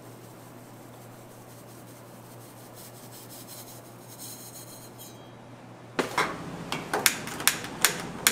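A faint steady low hum, then about six seconds in a sudden louder clatter of kitchen utensils and pans: a quick run of sharp knocks and clinks.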